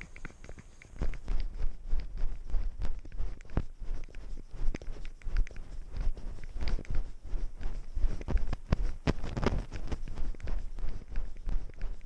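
A cat walking through snow, heard from a camera strapped to its body: irregular crunching steps and knocks close to the microphone, starting about a second in and going on without a steady rhythm.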